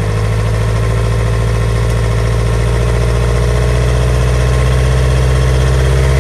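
2012 Mitsubishi Triton's 2.5-litre four-cylinder common-rail DI-D turbo diesel running at idle, its engine speed and loudness creeping slowly upward.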